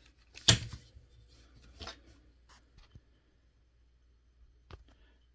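Handling noises: a sharp click about half a second in, followed by a few faint taps and rubbing, then another small click near the end.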